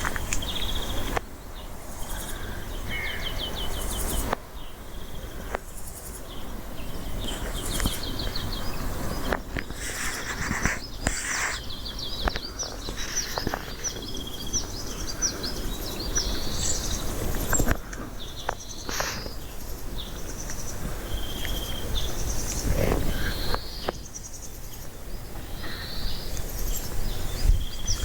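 Siberian chipmunk calling in short trains of rapid, high chirps, about ten a second, repeated with pauses. Scattered single chirps and a steady low rumble of wind noise run under it.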